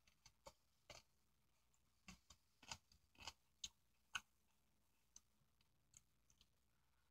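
Faint eating sounds: a metal spoon clicking against a bowl, with mouth noises, about fifteen short clicks in all. The loudest come a little past the middle.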